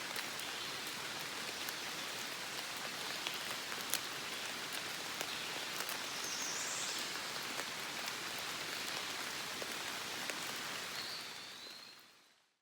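Steady gentle rain falling on forest ferns and leaves, with many individual drops ticking close by. It fades out near the end.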